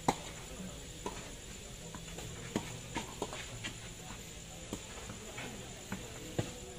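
Tennis racket striking the ball at close range with a sharp pop just after the start, followed by a string of fainter, irregular pops and taps of racket hits and ball bounces as the rally goes on across the court.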